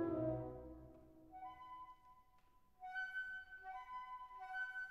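Instrumental background music. A held low chord dies away during the first second. About a second and a half in, a light, high melody starts, made of short notes stepping back and forth between two pitches.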